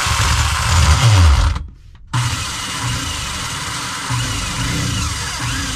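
Cordless drill boring a hole through the wall. Its motor pitch drops under load about a second in, it stops briefly about two seconds in, then it runs on steadily, with thin squeals from the bit in the second half.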